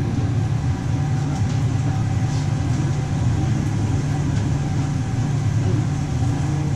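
Steady low mechanical rumble of a restaurant kitchen's ventilation fan running, with a faint hum of steady tones above it.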